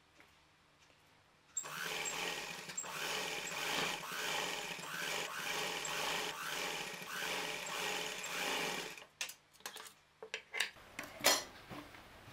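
Domestic sewing machine running steadily for about seven seconds as it stitches through fabric, then stopping. A few sharp clicks follow as the cloth is handled.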